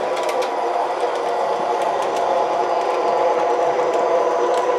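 MTH Proto-Sound 3 O-gauge PCC streetcar models running on three-rail track: a steady whirring hum from the motors and wheels, with a few light clicks.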